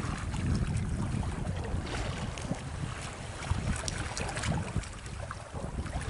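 Wind buffeting the microphone over water rushing and splashing along a wooden ketch's hull as it moves through choppy water.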